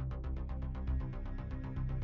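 Quiet background music with a quick, even ticking beat over a low bass.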